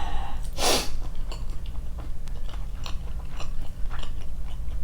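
A person chewing and biting fried chicken close to the microphone: many small crunchy, wet mouth clicks, with one louder short noisy burst about half a second in.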